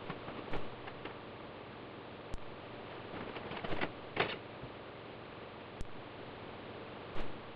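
Sparse light clicks and soft taps over a steady hiss: hand-pressed bean-burger patties being handled and set down on a foil-lined cookie sheet.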